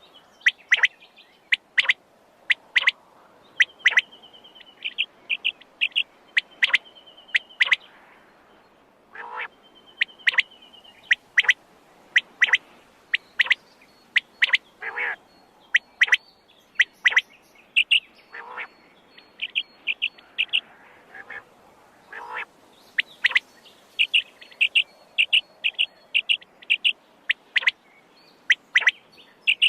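Quail calling over and over: short, sharp high notes, often in quick groups of two or three, with a few lower, rougher calls in between.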